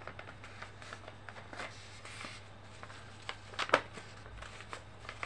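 A sheet of paper handled and folded into pleats by hand: scattered soft rustles and creasing, with a sharper crackle about three and a half seconds in, over a low steady hum.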